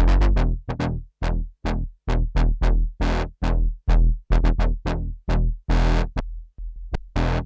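Arturia MatrixBrute analog synthesizer playing a sequenced run of short, punchy bass notes, about two to four a second. Each note starts bright and closes down fast to a deep bass, with a few brief gaps in the pattern.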